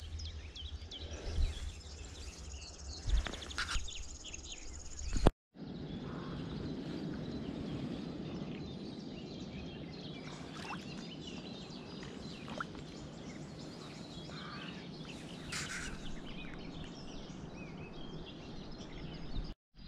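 Outdoor riverbank ambience: a steady low rushing hiss with a few scattered bird chirps. During the first five seconds, a few clicks and rustles of handling break in.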